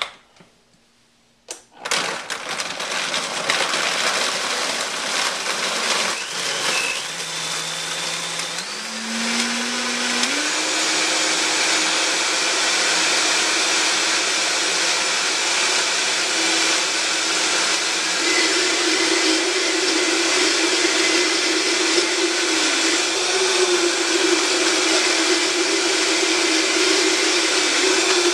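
A Vitamix blender starts about two seconds in and steps up in speed several times, its pitch rising in stages, then runs steadily at high speed. It is blending ice and frozen strawberries into a daiquiri.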